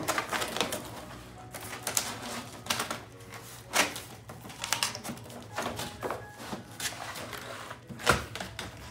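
Hand work on a cardboard mailing box: irregular taps, clicks and light scrapes, about a dozen spread over several seconds.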